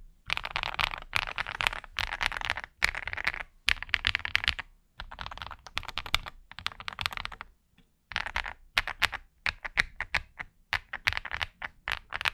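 Fast typing on a mechanical keyboard fitted with AKKO Mars Green ABS Cherry-profile keycaps, in quick runs of keystrokes broken by short pauses. It is a balanced sound that still leans to the clacky side.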